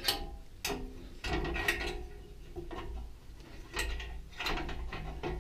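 A metal clamp being loosened and handled: an irregular run of clicks, ratcheting and knocks.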